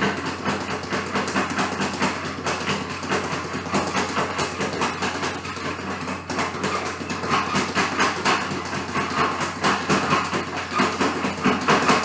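Speed bag being punched in a fast, steady rattling rhythm, the bag rebounding off the platform board several times a second.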